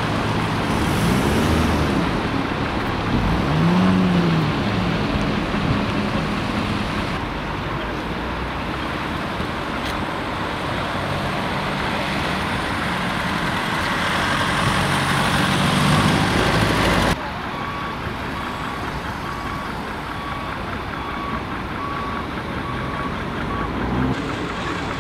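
Heavy vehicle engines running amid street traffic noise, one engine rising and falling in pitch twice in the first few seconds. After a sudden cut a little past halfway the sound is quieter, and a reversing alarm beeps at an even pace.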